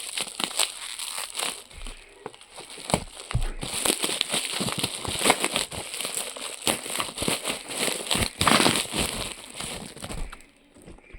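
Parcel packaging crinkling and rustling irregularly as it is unwrapped, quieting near the end.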